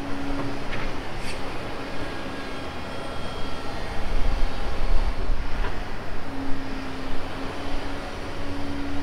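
Heavy demolition equipment running: a low diesel engine rumble with a steady whine that drops out near the start and comes back about six seconds in, plus a few faint knocks.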